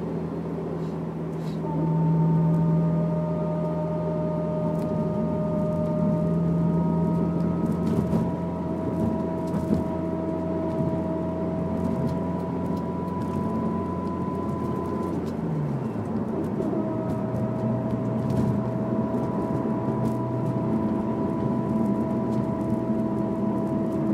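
Honda S2000 driving with a steady high-pitched whine over the engine note, a noise that comes only on throttle and that the owner suspects is the differential or the transmission. About two-thirds of the way through, the engine note drops and the whine briefly fades, then returns.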